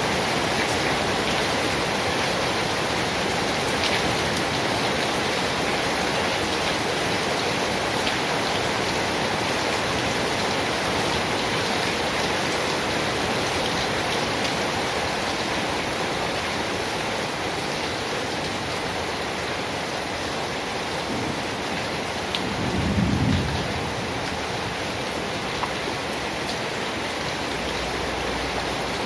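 Steady rain falling, with a brief low rumble of thunder about 23 seconds in.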